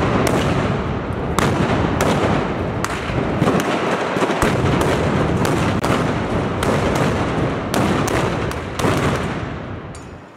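Dense, continuous crackle of many blank gunpowder shots fired together from arquebuses in a mock battle, with separate sharper reports standing out now and then. The firing thins and dies away near the end.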